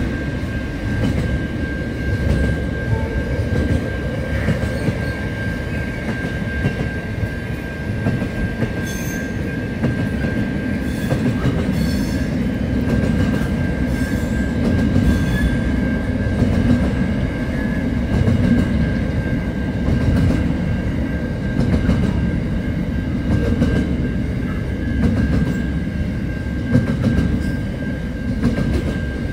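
Container freight train rolling past close by: a continuous low rumble of wagons with wheels clacking over the rail, swelling about every two seconds as the wagons go by, and a thin steady high tone over it.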